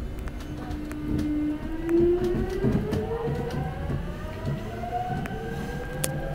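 Seoul Metro Line 5 subway train heard from inside the carriage, its electric traction motors whining as it gathers speed: a steady tone that starts rising in pitch about one and a half seconds in and keeps climbing. Under it is a low rumble with a few sharp clicks.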